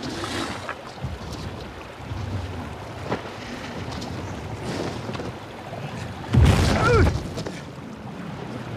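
Wind hissing over open snow, with a dragon's growl about two-thirds of the way through, a short, loud call that rises and falls in pitch.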